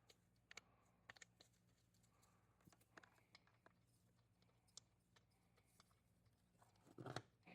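Near silence: faint scattered clicks and handling noises over a low steady hum, with a louder short knock or rustle about seven seconds in.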